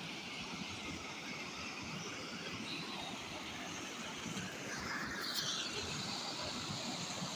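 Steady rushing of a fast-flowing river, growing a little louder about halfway through.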